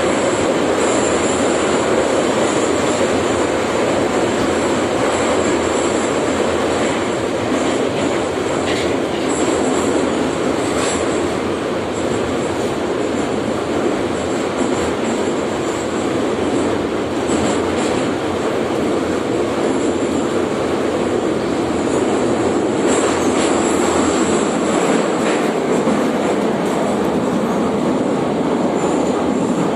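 Interior of a moving Soviet-built type E metro car: a loud steady rumble of wheels on rail and car body, with a thin high squeal that comes and goes.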